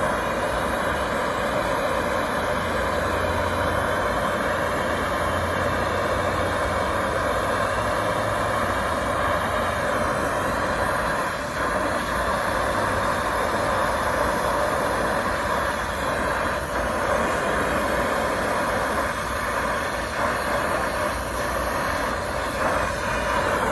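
Brazing torch flame burning with a steady, even hiss while it heats a copper refrigerant line's joint at a compressor stub and brazing rod is fed in.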